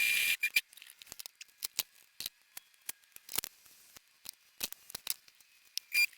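Irregular sharp clicks and snips from hand work, with a louder rasping burst in the first half-second.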